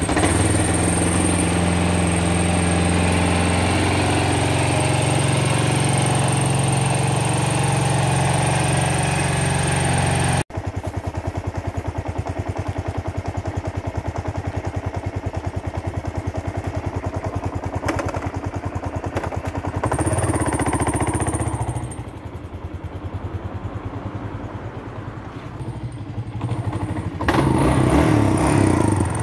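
Kawasaki KLR650's single-cylinder four-stroke engine running just after being started, idling steadily. After about ten seconds it is heard again with a quick even pulse, rising briefly about two-thirds of the way in and louder again near the end as the bike rides off.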